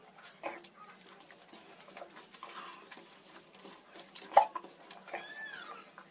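Soft wet squishing and small clicks of a hand mixing and squeezing cooked white rice with mutton curry on a banana leaf. A sharp click comes about four seconds in, and a short arching animal call follows just after it.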